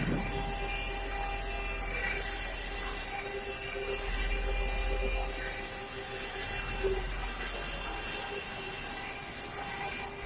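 Mini CNC carving machine running, its high-speed spindle giving a steady high whine and hiss, with a couple of faint clicks.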